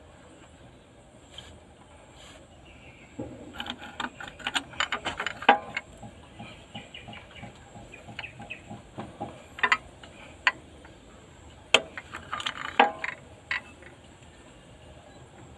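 Irregular metal clicks and knocks of a pipe wrench turning a homemade threaded-rod puller that is drawing a broken injector sleeve out of a Cat 3116 diesel cylinder head. The clicks come in a busy cluster a few seconds in and again about twelve seconds in.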